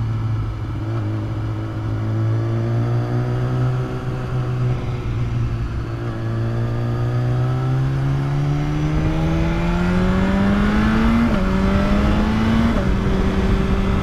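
BMW S1000RR's inline-four engine heard through a lapel mic inside the rider's helmet, with a rush of wind noise under it. The engine note holds steady, then climbs as the bike accelerates, and drops sharply twice near the end as it upshifts.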